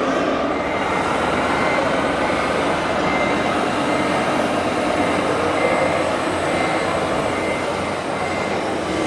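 Steady mechanical din of RC model trucks and machinery in a busy exhibition hall, with a faint short high beep repeating about once a second, like a model truck's reversing warning.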